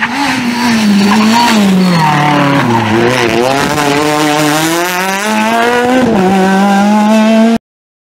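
Citroën C2 rally car's engine at high revs. The pitch falls as the car slows into a tight bend, lowest about three seconds in, then climbs as it accelerates away, with a gear change near six seconds. The sound cuts off suddenly near the end.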